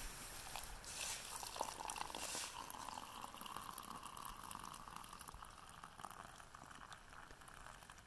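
Hot water pouring from a stainless steel thermos into an insulated plastic mug of instant coffee grounds: a faint steady stream that starts about a second in, rises a little in pitch, and fades toward the end.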